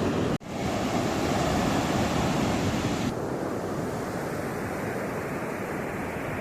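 Sea waves washing on a rocky shore with wind rushing over the microphone. The sound drops out for an instant about half a second in, and about three seconds in the hiss turns duller and a little quieter.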